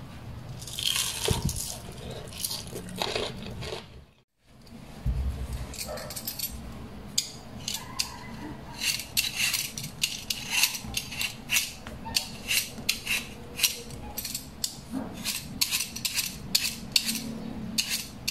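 Raw potato being peeled with a vegetable peeler: a run of crisp scraping strokes, a few each second, as strips of skin come off.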